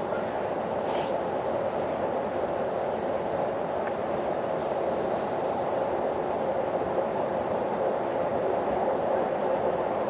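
Steady outdoor ambience, mostly a constant noisy hiss, over which a high insect chorus pulses on and off about every second and a half.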